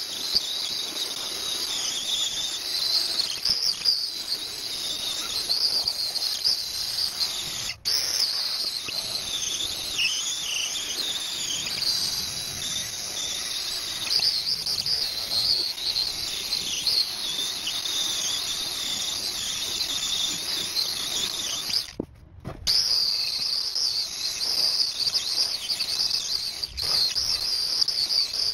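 Angle grinder with an abrasive disc grinding rust off a cast-iron printing press bed: a steady, high-pitched, wavering whine that breaks off briefly twice, about eight seconds in and again around twenty-two seconds in.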